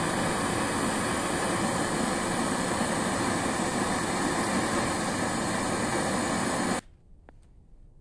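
Small propane hand torch burning with a steady rushing hiss, which stops abruptly about seven seconds in.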